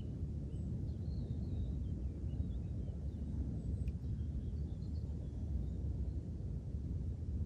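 Steady low outdoor rumble with faint, scattered bird chirps over it.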